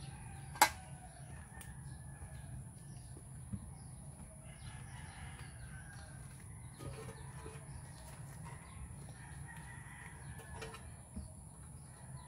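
A single sharp knock just after the start, the loudest sound, as the wooden and concrete pieces of a makeshift shelter are handled; then faint bird calls rise and fall in the background for several seconds over a low steady hum.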